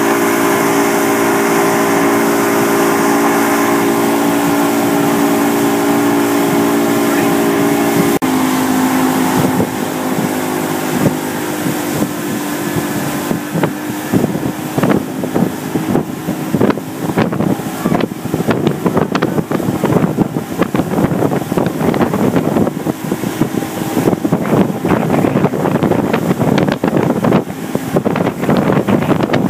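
Outboard motor of a boat running at a steady towing speed, a constant drone. After a sudden change about 8 seconds in, wind buffeting the microphone and the rush of the wake take over, with the engine fainter underneath.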